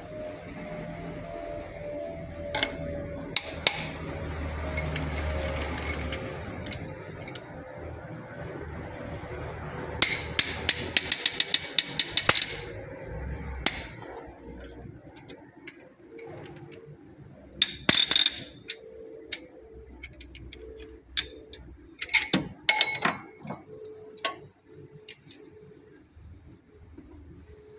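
Metal hand tools clinking and tapping against engine parts during cylinder-head work, with a quick run of rapid taps about ten seconds in and scattered knocks later.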